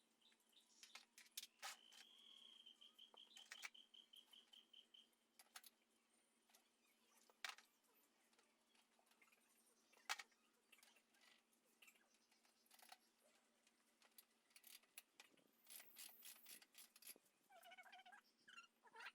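Near silence with faint scattered clicks and taps. A faint high steady tone sounds a couple of seconds in, and short chirping calls come near the end.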